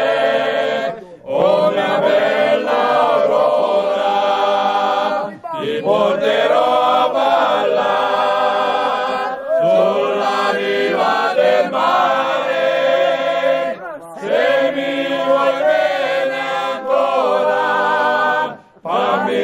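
A men's folk group singing together in chorus, with accordion accompaniment. The phrases last about four seconds, with a short break between each.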